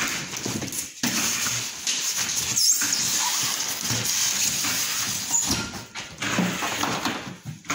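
Polystyrene foam packing blocks and a cardboard TV carton being handled: foam rubbing and scraping against cardboard, with frequent short knocks as the blocks are fitted and the flaps folded.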